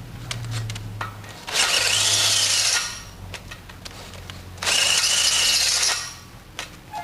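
Power drill boring out a stripped bolt hole in a Datsun 240 engine block, running in two bursts of about a second each with quieter pauses and a few clicks between them.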